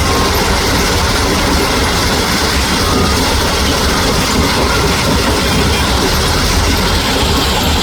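Heavy truck running, a steady loud rumble with a noisy rattle over it.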